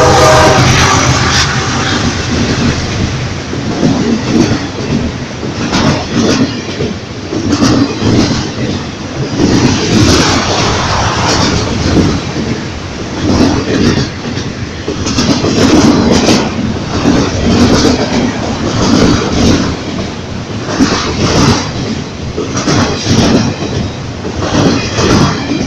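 A freight train's cars rolling past, the wheels clattering over the rail joints in a rhythmic clickety-clack that swells about every two seconds. A locomotive horn blast trails off in the first second or so.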